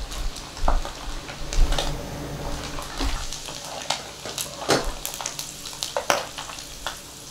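Powder-coated dried shredded squid deep-frying in hot oil, sizzling steadily. Frequent sharp clicks and scrapes from metal tongs and a wire mesh strainer knocking against the pan.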